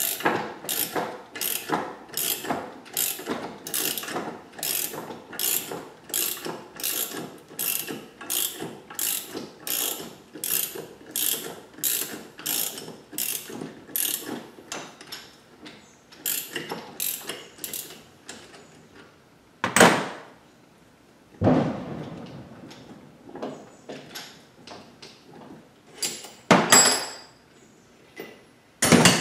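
Ratchet wrench clicking steadily, about two clicks a second, as it cranks down the forcing screw of a gear puller pulling a gear off an NV4500 transmission shaft. The clicking stops after about eighteen seconds. A loud sharp bang follows about twenty seconds in, then a few scattered metallic knocks.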